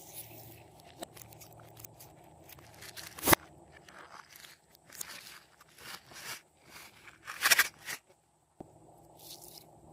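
Hands working glossy slime: irregular squishing and crackling with small pops, one sharp loud pop a little over three seconds in and a cluster of loud ones around seven and a half seconds. The sound drops out briefly just after eight seconds, then the soft crackling resumes.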